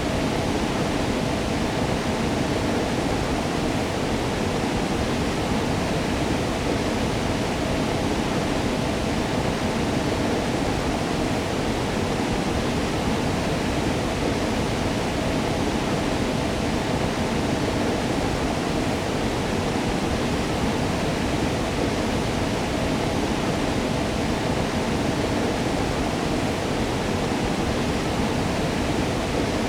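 Waterfall: water falling and splashing in a steady, unbroken rush with no change.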